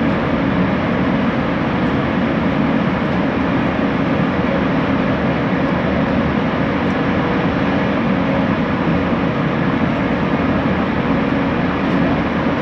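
Bombardier Innovia ART 200 light-metro train running at a steady speed: a constant rumble and rush with a faint steady hum underneath.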